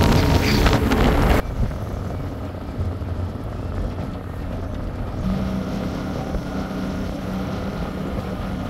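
A 21-foot KingFisher aluminum boat's engine running fast over choppy water, with wind and hull noise. About a second and a half in, the sound cuts abruptly to a quieter, slower run, and a steady low hum comes in about five seconds in as the boat moves slowly through the harbor.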